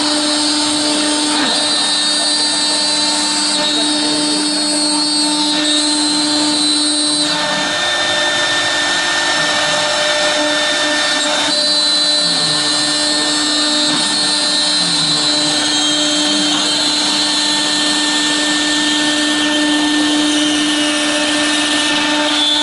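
1325 CNC router's spindle running with a steady high whine while its router bit cuts through a clear acrylic sheet. The cutting hiss over it changes a few times as the bit moves along its path.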